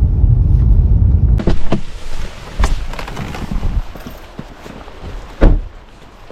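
Heavy low wind rumble on the microphone, then after a sudden change a gusty noise broken by irregular thumps and knocks, the loudest about five seconds in.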